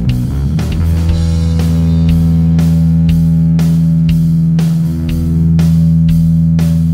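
Bass guitar played through a Fender Blender fuzz pedal: a thick, fuzzy note comes in about a second in and sustains over a steady drum beat.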